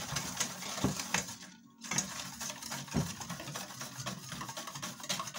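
A spoon stirring a liquid whey mixture in a stainless steel bowl, with irregular scrapes and clinks against the metal. The stirring stops briefly about a second and a half in.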